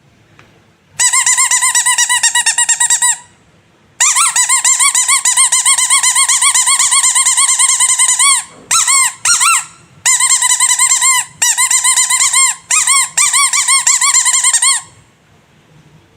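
Squeaky rubber animal toy squeezed over and over in quick succession, making a high squeak that wavers in pitch many times a second. It comes in long runs with short breaks, and a few single short squeaks in the middle.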